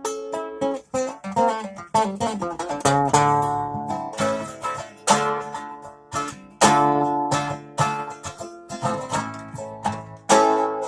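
A plucked string instrument played solo, with no voice: quick picked runs of notes at first, then chords struck every second or two and left ringing.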